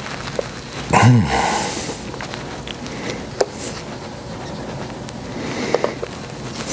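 A short grunt with a breathy exhale about a second in, then a few light clicks and taps over a steady background hiss.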